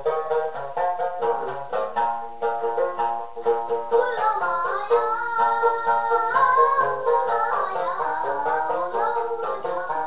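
Tibetan dranyen lute strummed in a quick, even rhythm; about four seconds in, a young singer's voice comes in over it.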